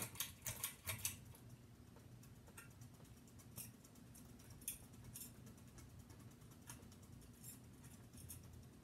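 Hampton Bay Landmark III Plus ceiling fan running on high: a faint steady motor hum with light clicks and ticks, several close together in the first second, then scattered ones.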